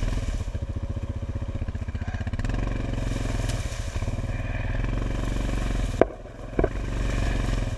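ATV engine running with an even pulsing beat. About six seconds in there is a sharp knock, the engine goes briefly quieter, and a second knock follows.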